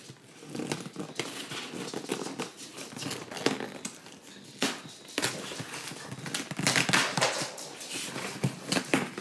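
Mail parcel being handled and opened: packaging crinkling and rustling, with irregular clicks and snaps.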